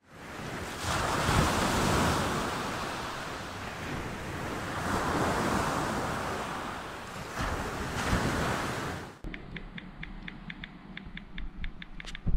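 Waves washing up on a sandy beach, swelling twice, with wind on the microphone. It cuts off about nine seconds in, and then comes a quieter run of quick, evenly spaced light ticks from a smartphone keyboard being typed on.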